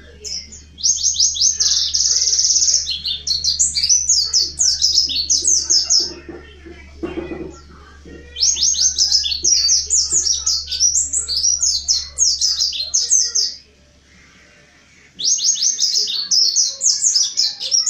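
Mountain white-eye singing in its lively full song: three long bouts of rapid, high, chirping twitters separated by short pauses. A low steady hum lies underneath and stops shortly before the last bout.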